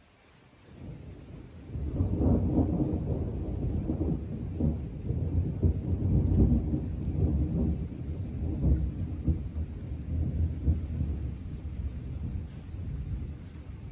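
Long roll of thunder: a deep rumble builds about a second in, rises sharply a second later and rolls on in repeated surges for around ten seconds, easing off near the end.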